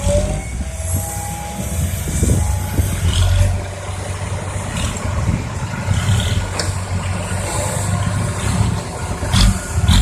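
Heavy diesel earthmoving machinery working, the engine running steadily with a whining hydraulic tone over the first few seconds. Two sharp knocks come near the end.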